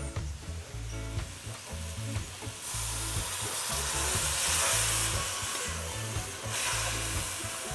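Water poured from a cup into a hot pot of string beans frying in a browned roux, sizzling hard as it hits the hot pot. The hiss swells about three seconds in and eases off near the end as a metal spoon stirs the pot.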